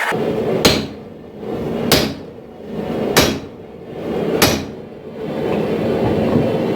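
Four heavy hammer blows on steel at the anvil, evenly spaced about a second and a quarter apart, each ringing briefly. A steady rushing noise fills the gaps between blows.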